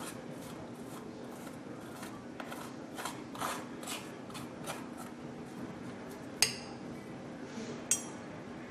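A fork scraping the flesh of a cooked spaghetti squash half into strands, in repeated strokes about two a second, then two sharp clinks against the glass dish near the end.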